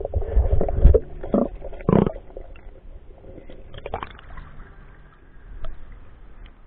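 Water noise and knocks picked up by a camera held underwater in a river, with several loud low thumps in the first two seconds. The camera then comes up out of the water and the sound goes quieter.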